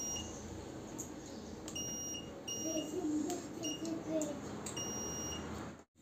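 Digital multimeter's continuity beeper sounding in about five short, uneven beeps as the probes test a push-button switch on an induction cooker's control board. The beep means the switch contacts are closing: this button has continuity and works.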